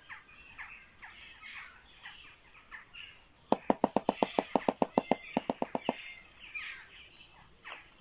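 Shoebill clattering its bill: a fast run of about seventeen sharp clacks, roughly seven a second, lasting about two and a half seconds, starting a little past the middle. Small birds chirp faintly in the background.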